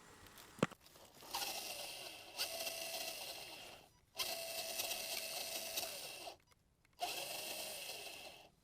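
Electric motor and drivetrain of an Axial AX10 RC crawler whining in three throttle bursts of about two seconds each, with a sharp click just before the first.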